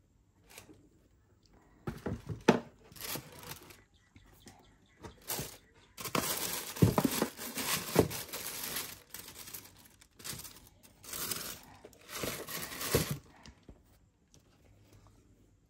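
Tissue paper crinkling and rustling in several bursts as sneakers are unwrapped and lifted out of a cardboard shoebox, the longest stretch in the middle, with a few sharp knocks among it.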